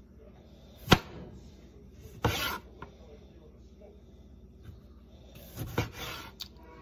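Homemade kitchen knife with a blade made from an old saw blade slicing through a lemon and striking the board. A sharp knock about a second in, a short scrape a second later, and a few more knocks and scrapes near the end.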